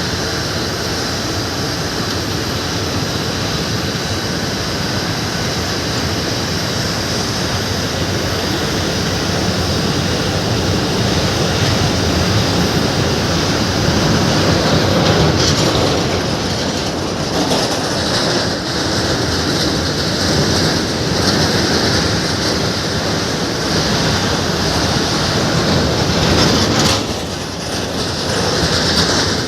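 Steady roar of jet aircraft engines with a faint high whine, swelling a little midway and dipping briefly near the end.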